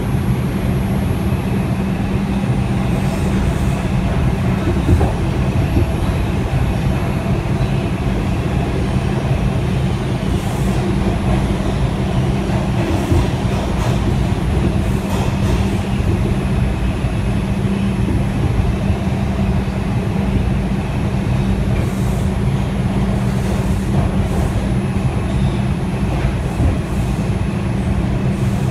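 R142 subway car running at steady speed through a tunnel, heard from inside the car: a constant rumble of wheels on rail and running gear under a steady low hum, with a few faint clicks here and there.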